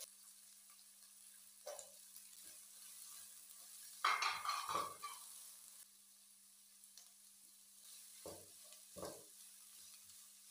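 Sliced onion and green capsicum sizzling in hot oil in a wok. About four seconds in there is a louder burst of sizzling and rattling as more vegetables go in and are stirred, and near the end come two short scrapes of a spoon against the pan.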